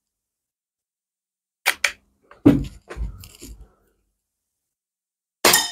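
Two sharp clicks and then handling knocks as the SMK PR900W air rifle is readied and shouldered. Near the end comes the crack of the shot and the pellet striking a hanging metal kitchenware target, which rings briefly.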